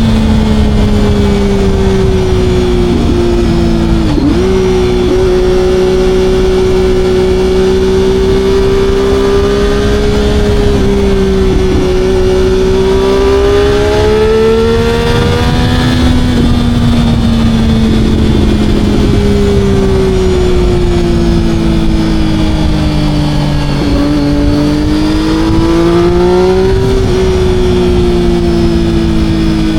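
Motorcycle engine running under way, its note wandering gently up and down as the throttle and speed change, over a steady low rush of noise.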